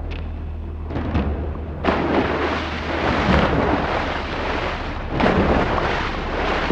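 A body plunging into seawater with a heavy splash, then loud rushing, crashing water. The noise surges sharply about two seconds in and again about five seconds in.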